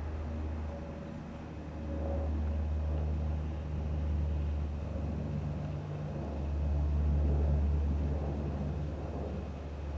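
Airbus A320-211 jet airliner's twin CFM56 engines giving a steady low rumble as it rolls out along the runway after landing, growing louder for a while about seven seconds in as it passes closest.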